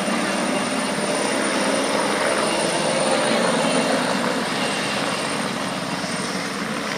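Helicopter flying past, its rotor and engine giving a steady noise with no break.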